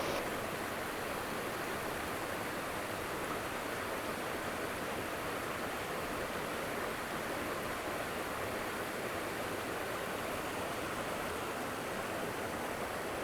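Small mountain creek running over rocks: a steady rush of flowing water.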